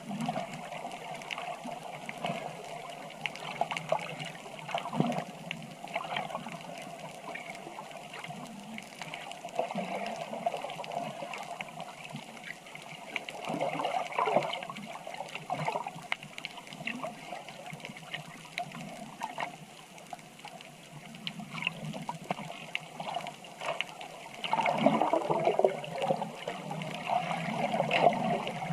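Water sloshing and gurgling in uneven surges, loudest in the last few seconds.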